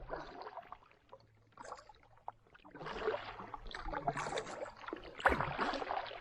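Canoe paddle strokes in water: a run of swishing splashes and drips, roughly one stroke a second, the loudest near the end.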